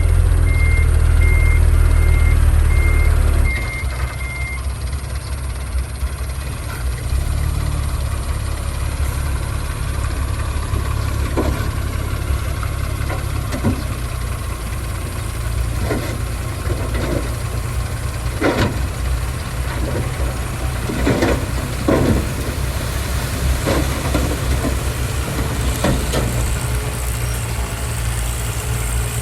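Heavy diesel earthmoving machinery running with a deep, steady engine rumble, louder for the first few seconds. A reversing beeper sounds at the start, and irregular metallic clanks and knocks come through in the second half.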